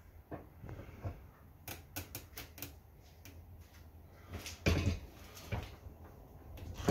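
Metal tire-changing tools clicking and knocking against a motorcycle wheel rim while a tire bead is levered on by hand: a quick run of clicks about two seconds in, then a few heavier knocks near the end.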